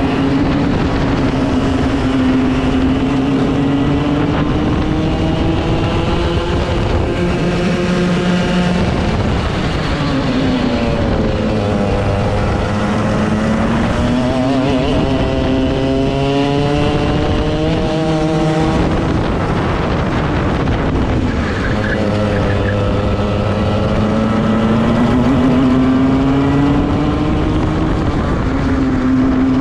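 Two-stroke racing kart engine heard on board at race pace. Its pitch climbs as the kart accelerates and drops back as it slows for corners, several times over.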